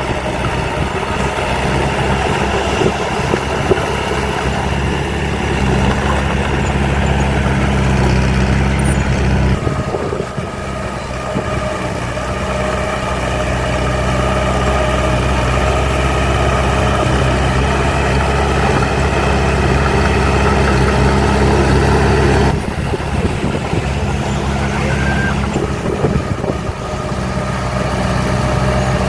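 Heavy earthmoving machinery's diesel engine running steadily. Its note changes about five and a half seconds in, dips about ten seconds in, and changes again about twenty-two seconds in.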